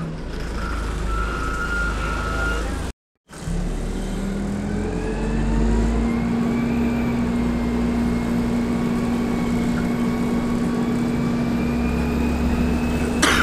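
Interior sound of an Alexander Dennis Dart single-deck bus on the move: steady engine rumble, then a rising engine and transmission whine about five seconds in that settles to a steady drone. The sound cuts out briefly about three seconds in, and there is a short knock near the end.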